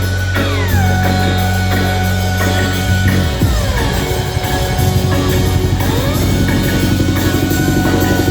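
Loud live band music with a heavy bass line and drums. The bass drops out about three seconds in under falling and rising synth sweeps, then comes back.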